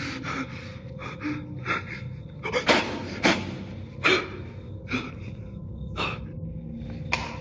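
A man breathing heavily in short, uneven breaths, about one a second.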